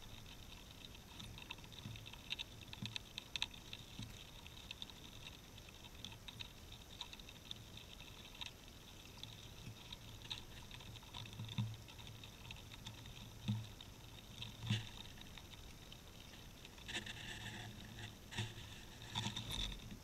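A squirrel foraging for sunflower seeds on the snow right beside the camera: faint, irregular small clicks, taps and scratches, with a few dull thumps around the middle and a denser flurry of clicks near the end. The audio is sped up to twice normal speed.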